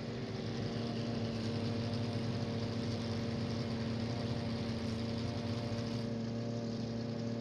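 Engine running steadily at an unchanging pitch, over a broad hiss.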